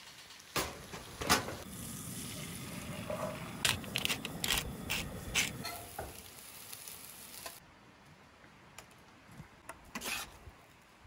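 Scrambled eggs sizzling in a skillet while a metal spatula stirs them, scraping and knocking against the pan several times. The sizzle drops away later on, leaving a few light clinks near the end.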